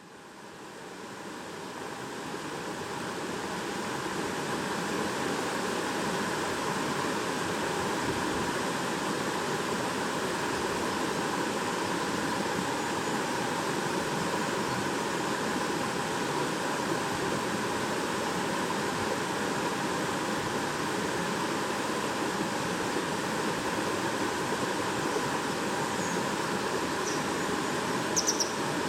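Shallow stream babbling steadily over stones, fading in over the first few seconds. A few brief high-pitched sounds come near the end.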